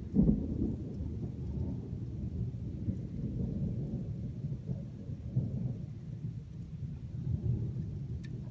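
Low, rolling thunder rumble, loudest just after the start and swelling again several times.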